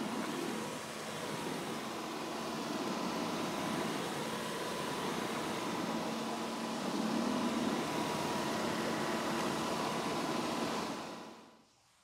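Dyson cordless stick vacuum running steadily, with a thin high whine over the rush of air as its laser-lit floor head is worked across a wooden floor. The sound fades away near the end.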